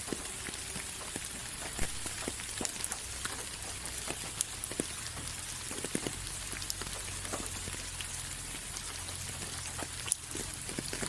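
Steady rain falling, a continuous hiss with many individual drops tapping close by.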